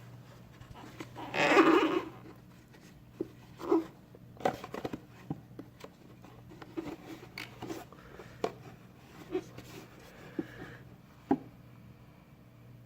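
Hands working epoxy putty onto a plastic air box: scattered light taps, clicks and rustles, with one louder rustle about a second and a half in, over a steady low hum.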